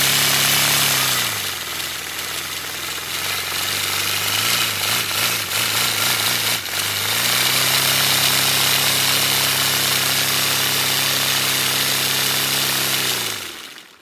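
Air from inflated balloons rushing through a four-cylinder paper radial engine model as its propeller spins, a steady hiss with a low buzzing tone over it. The buzz fades after about a second, with some clicking in the middle, returns about seven seconds in, and everything dies away near the end as the balloon air runs out.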